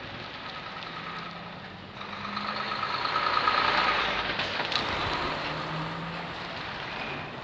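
A motor vehicle passing by, growing louder to a peak about three to four seconds in and then fading, with a few sharp clicks near its loudest point.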